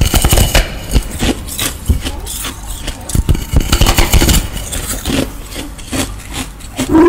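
Close-miked eating sounds of a person biting into and chewing a large green molded lotus-shaped food: a dense, loud run of wet clicks and smacks.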